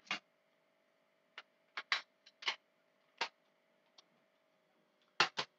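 A string of about ten short, irregularly spaced clicks and knocks from something being handled, over a faint steady hum.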